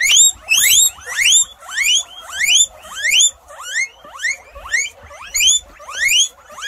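Guinea pig wheeking: a run of short, sharply rising whistled squeals, about two a second.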